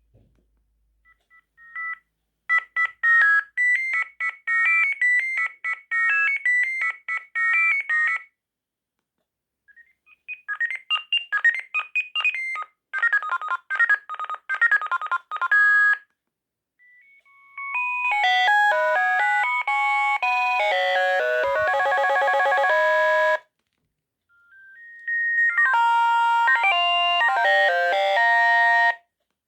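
A Sagem MY 3022 mobile phone playing four short electronic ringtone melodies in turn, each a few seconds long, with brief pauses between them.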